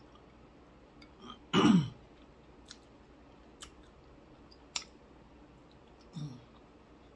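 A person eating with her fingers makes mouth sounds: a loud, short throat sound falling in pitch about a second and a half in, a few sharp lip-smacking clicks while chewing, and a brief low voice sound near the end.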